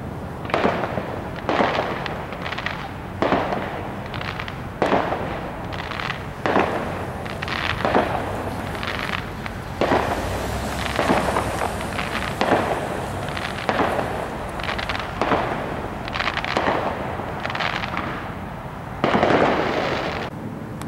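Amateur consumer fireworks going off in the air: a long irregular run of sharp bangs, about one to two a second, each trailing off briefly. Near the end comes a longer, louder burst.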